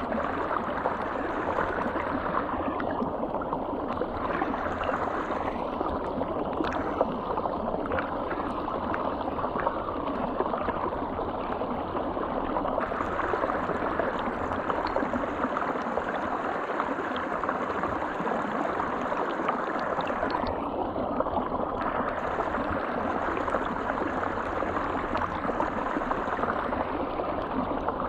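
River water flowing, a steady rushing that holds the same level throughout.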